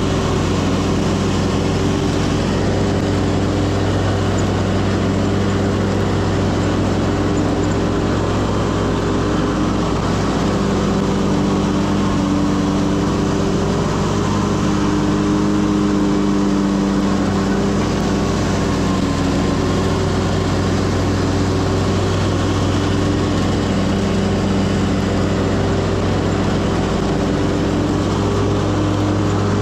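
Stand-on zero-turn lawn mower's engine running steadily at working speed, with an even drone.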